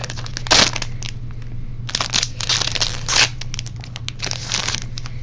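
Foil booster-pack wrappers crinkling and tearing as a trading-card pack is handled and opened, with several loud, sharp crinkles.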